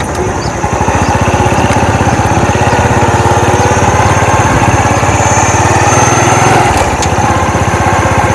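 Motorbike engine running steadily as the bike rolls slowly along a narrow lane.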